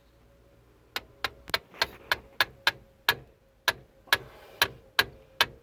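Steel-headed hammer tapping an Allen-key socket into the stripped head of a VW van's rear axle bolt, to seat it before the bolt is driven out. The taps are quick and sharp, about three a second, and begin about a second in.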